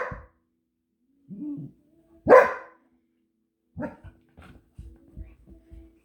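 A puppy barking: a sharp bark at the start and a louder one about two seconds in, with a short low growl between them. Light clicks and taps follow in the second half.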